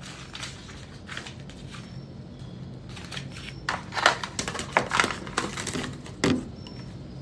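Paper and small objects being handled: rustling and crinkling with sharp knocks and clatters, thickest and loudest in the middle.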